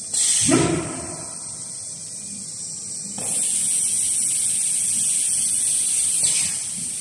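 CNC router running with a steady high-pitched whine. There is a short loud burst just after the start, and a louder hiss from about three seconds in until a click near six seconds, when it drops back.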